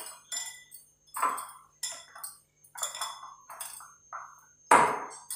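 Hand mixing and kneading soft flour dough in a glass bowl: irregular short clinks and knocks against the glass, about two a second, with a louder knock near the end.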